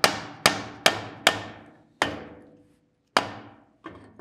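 Hammer blows on a steel forge air pipe, bending it down to fit the hand-crank blower outlet: four quick strikes about half a second apart, then slower ones a second or so apart, the last one lighter. Each blow rings briefly in the pipe.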